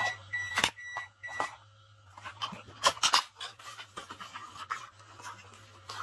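A plastic battery box being handled and opened, with crinkling and sharp clicks of the plastic, loudest about three seconds in. In the first second and a half there is a short run of about four quick, high electronic beeps, evenly spaced.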